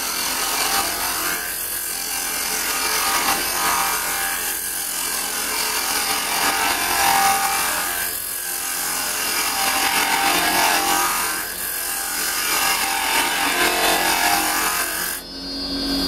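Carbide turning tool with a round cutter cutting into a spinning block of tantalised softwood on a lathe: a continuous scraping hiss that swells with each pass of the tool. It stops abruptly just before the end as the tool comes off the wood.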